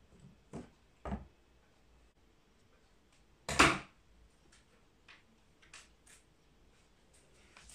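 Handling noises: a few scattered knocks and clicks, the loudest a sharp knock about three and a half seconds in, as the mannequin head and its stand are adjusted and things are picked up.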